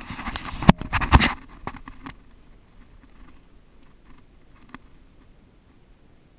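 Close rustling and scraping with two sharp knocks, then a few faint scattered clicks.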